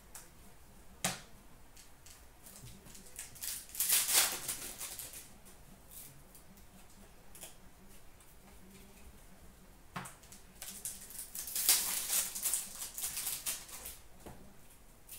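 Hockey trading cards being slid and flipped through by hand: two spells of papery rustling, with a sharp snap of card about a second in and another about two-thirds of the way through.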